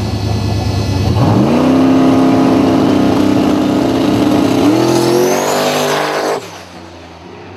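Turbocharged drag-racing Mustang engine at the starting line: a low idle, then revved up about a second in and held at one steady pitch while staged. About five seconds in it launches, the revs climbing with a rising high whine over them, and the sound cuts off abruptly about six seconds in.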